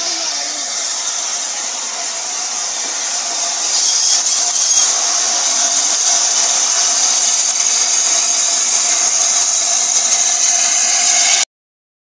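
Steady steam hiss from LNER A4 locomotive 60007 Sir Nigel Gresley as it passes slowly beneath a footbridge, with a faint steady whine under it. It gets louder about four seconds in and cuts off abruptly near the end.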